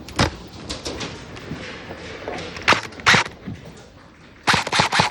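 Airsoft gun shots: a few single sharp cracks spaced apart, then a quick run of about five near the end.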